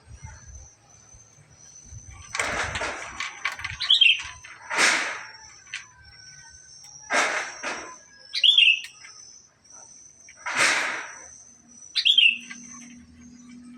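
Male black-capped lory calling: four harsh screeches a few seconds apart, with short falling whistled notes between them.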